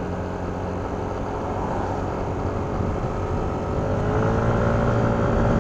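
Yamaha NMAX 155 scooter's single-cylinder four-stroke engine running on the move, its pitch and level rising gradually as it accelerates from about four seconds in.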